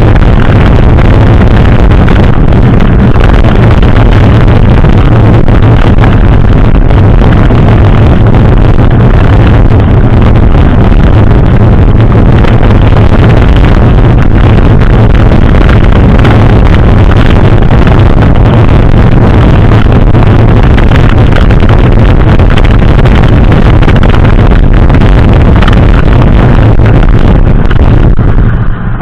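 Continuous loud rush of wind buffeting the microphone, mixed with tyre rumble from a mountain bike in motion, loud enough to overload the recording. It stops abruptly near the end.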